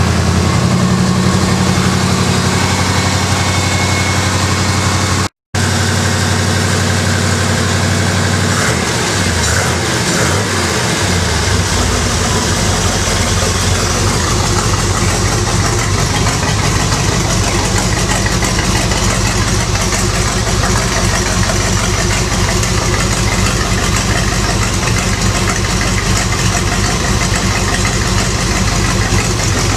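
Chevrolet V8 engine in a Toyota FJ40 Land Cruiser running at idle, its pitch swinging up and back down briefly about ten seconds in before it settles into a steady low rumble. The sound drops out for an instant about five seconds in.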